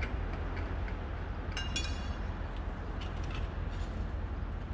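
A steady low rumble, with scattered light clicks and one short ringing clink just under two seconds in.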